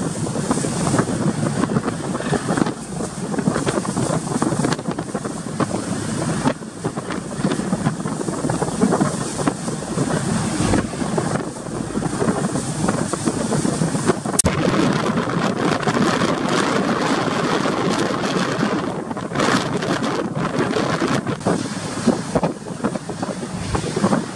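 Strong wind buffeting the microphone over the rush of rough sea, aboard a passenger ship under way in high waves.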